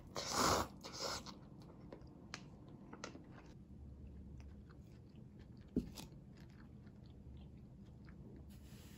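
Close-up eating sounds of a cup-noodle meal: two short loud noisy bursts in the first second and a half, then small scattered chewing clicks. About six seconds in there is one dull thump as the paper cup is set down on the table mat.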